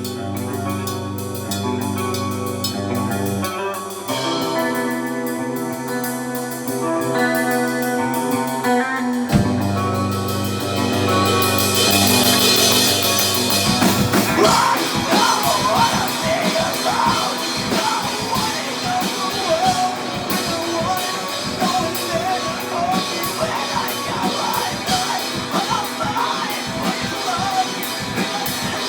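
Live rock band playing: held low bass and guitar chords that change twice, a rising cymbal swell, then the drum kit comes in about fourteen seconds in with a wavering lead line over the full band.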